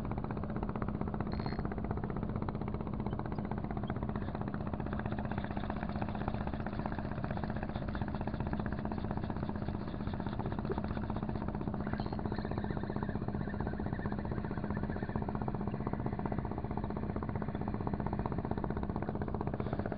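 A steady engine drone with a constant hum, unchanging in level throughout.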